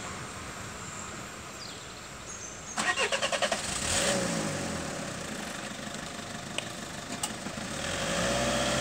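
A car engine cranking in a quick run of strokes for under a second, then catching about four seconds in and settling down in pitch. Near the end another engine rises in pitch as a car pulls away.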